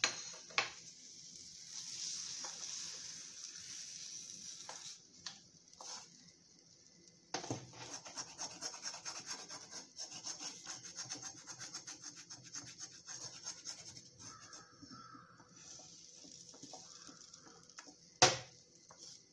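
A spatula scraping the inside of a kadhai in quick repeated strokes, lifting out a finished ridge gourd and poppy-seed curry, with a few clicks at the start and one sharp knock near the end.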